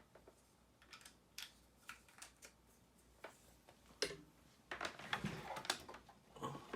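Small clicks and rustles of a power supply and USB cable being handled, scattered at first and growing busier about four seconds in.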